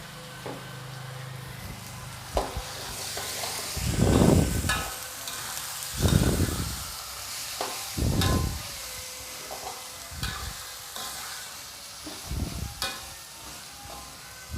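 Squid and brinjal frying in a pan with a steady sizzle while they are stirred. A few louder stirring strokes come about two seconds apart, with another near the end.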